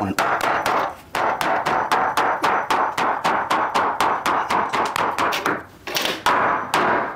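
Hammer rapidly striking the top end of a 2x4 wood stud, about four blows a second with brief pauses about a second in and near the end. The stud was cut 3/16 inch longer than the gap, so it has to be driven in to make a tight, load-bearing fit.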